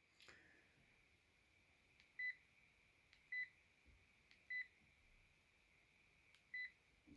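Sharp GX12 mobile phone's keypad key tone: four short, high beeps at irregular intervals of about a second or two, each just after a faint click of a key being pressed, as the menus are scrolled.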